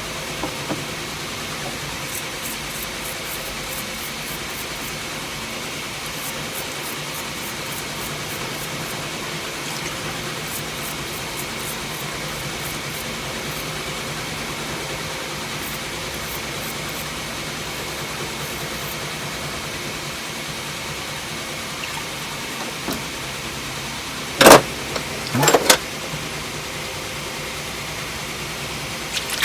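Steady mechanical background noise with a faint high steady whine, runs of faint rapid ticking, and two loud sharp knocks about a second apart near the end, typical of tool holders being handled.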